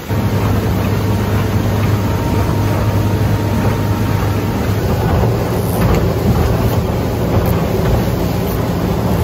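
Motorboat engine running steadily at speed, a low hum under the rush of wind and water.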